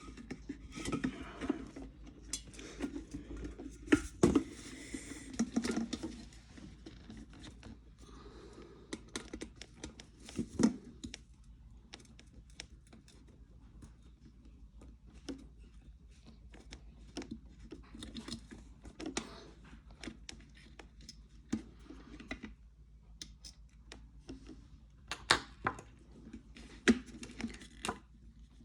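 Plastic and metal parts of an electric kettle being handled and fitted by hand: scattered sharp clicks and knocks with short scraping and rustling, busiest in the first few seconds and again near the end.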